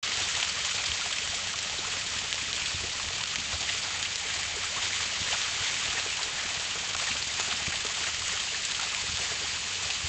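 Garden hose running water: a steady, even hiss of flowing water with no change in strength.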